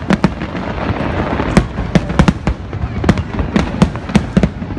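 Aerial fireworks going off in a rapid, irregular string of sharp bangs, several a second, over a steady hiss of noise.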